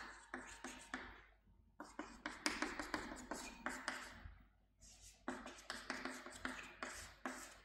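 Chalk writing on a chalkboard: quick taps and scratches in bursts, with short pauses about one and a half and four and a half seconds in.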